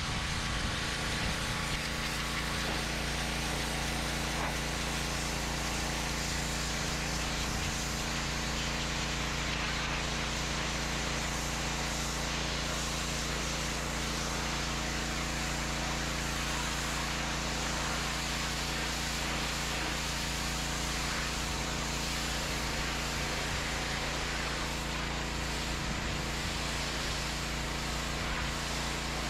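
TEANDE 4200 PSI gas pressure washer's 209cc engine running steadily, with the hiss of the high-pressure jet from the wand blasting grime off a concrete walkway.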